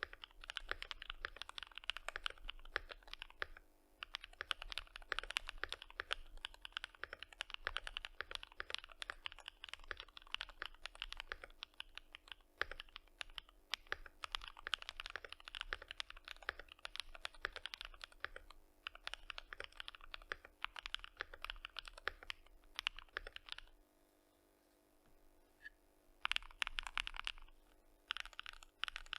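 Typing on a FinalKey V65 R2 aluminium-case mechanical keyboard with stock Gateron Modern Gray switches and ABS doubleshot keycaps, fully foamed and taped. Quick runs of keystrokes with short pauses, then a gap of about two seconds near the end before fast typing starts again.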